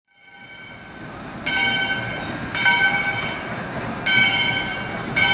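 Steam locomotive's bell ringing, with repeated clangs about a second apart over the low rumble of the engine moving through the station.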